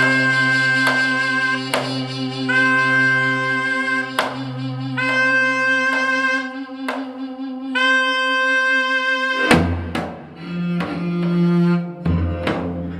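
Korean traditional quartet music: a loud double-reed wind plays long held notes with slight pitch bends over a low sustained dae-ajaeng (bowed zither) tone, punctuated by sharp janggu drum strokes. About two-thirds of the way through the reed stops and the dae-ajaeng carries on alone with low bowed notes and drum strokes.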